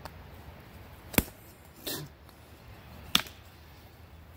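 Dewalt 20 oz camper's axe chopping into a stick of firewood on a stump: two sharp knocks about two seconds apart, with a softer sound between them.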